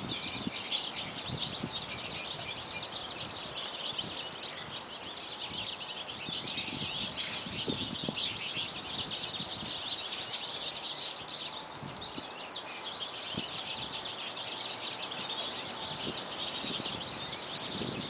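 A flock of yellow finches chattering as they feed: many quick, high chirps and twitters overlapping one another.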